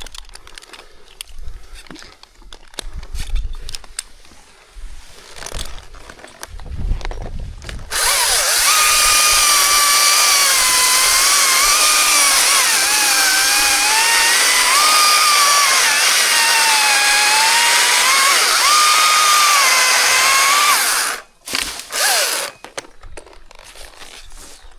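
Chainsaw cutting wood for about thirteen seconds, its pitch dipping and recovering as the chain loads up in the cut, then stopping abruptly. Before it come scattered knocks and rustling, and after it a couple of short bursts.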